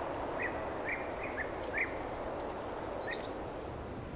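Birds chirping over steady outdoor background noise: a handful of short chirps, and a quick falling series of high notes a little past halfway.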